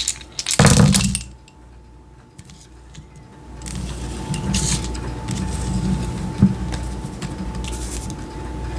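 Small hard curio markers such as coins and trinkets clattering and clinking together, dying away about a second in. After a short lull, a steady low rumble with a faint thin hum and a few light clicks sets in.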